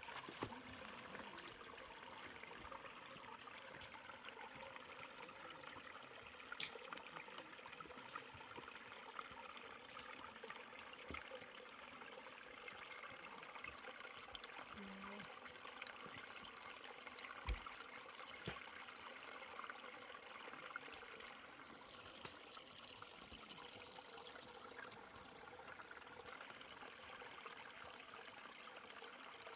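Mountain stream running steadily over rocks, a faint even rush of water, with one low thump about halfway through.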